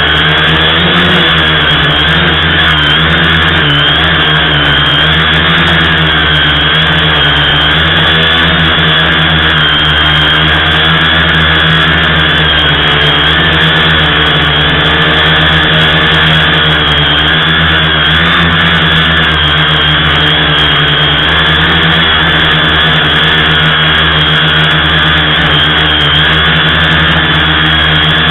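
Tricopter's electric motors and propellers whining steadily, heard very close from a camera on the craft itself, the pitch wavering slightly as the throttle changes.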